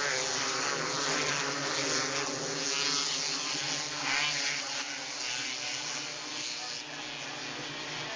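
Several 270 micro sprint cars' engines racing around a dirt oval, a continuous buzzing drone whose pitch wavers up and down as the cars accelerate and pass.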